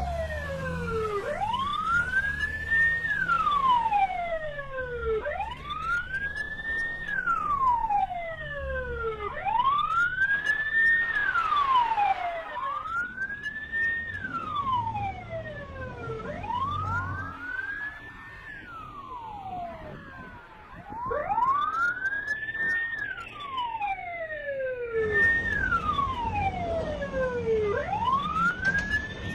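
Police siren in wail mode: a rise to a high pitch, a brief hold, then a longer fall, repeating about every four seconds, with a low rumble underneath that grows louder near the end.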